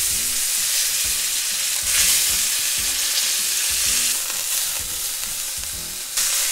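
Beef roast searing in hot oil in a frying pan on high heat: a steady sizzle, louder for a moment about two seconds in and again near the end as the meat is turned onto a fresh side.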